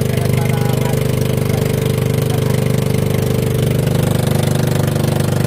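Outrigger fishing boat's (bangka) engine running steadily at a constant speed, with a fast, even beat.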